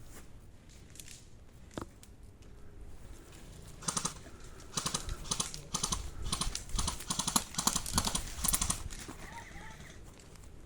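Footsteps of a player moving quickly over rough ground: a dense, irregular run of crunching steps from about 4 to 9 seconds in, with fainter steps around it.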